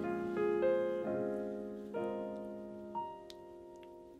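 Background music: a solo piano playing slow notes that ring and fade, growing quieter toward the end.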